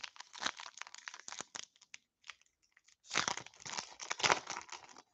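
Foil wrapper of a hockey card pack crinkling as it is handled and torn open by hand. A first spell of crinkling gives way to a louder burst of tearing and crinkling about three seconds in.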